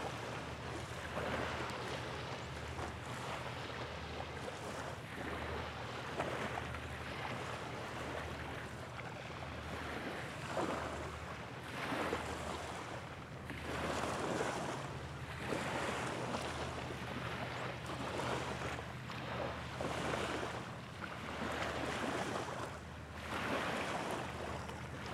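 Small waves lapping at the shoreline, swelling every second or two, with wind buffeting the microphone, over a low steady hum.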